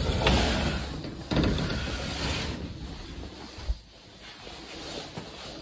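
Strong wind blowing in gusts and buffeting the microphone, easing off through the second half.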